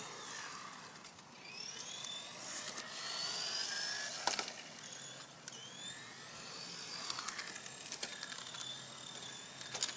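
RC car's motor whining, its pitch climbing each time the car speeds up, two or three runs in a row, then holding a steady tone. A sharp click comes about four seconds in.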